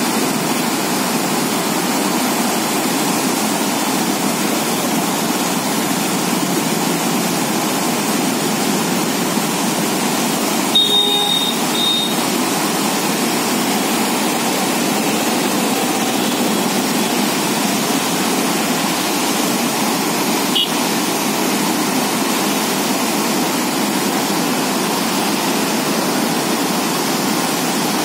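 Water pouring out through the open sluice gates of a lake dam: a steady, loud rush of falling water. A brief beep sounds over it about eleven seconds in.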